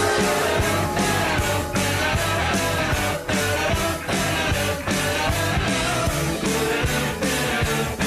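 Rock goal song with a singer over a steady drum beat, played after a lacrosse team's goal horn to mark a goal.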